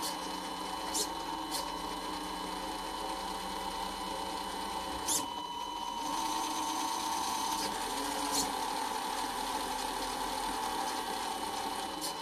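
The small electric motor and plastic gears of a 1/14 Tamiya Scania three-speed constant-mesh gearbox run on the bench, giving a steady whine with a few clicks. The tone shifts up slightly about six seconds in.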